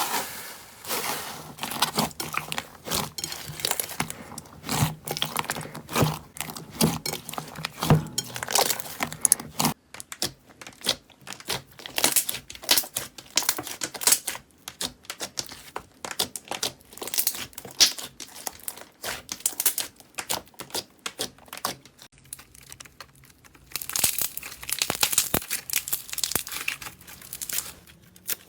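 Slime being pressed and squeezed by hand, giving a dense, irregular run of sharp crackles and pops, with a thicker burst of crackling near the end.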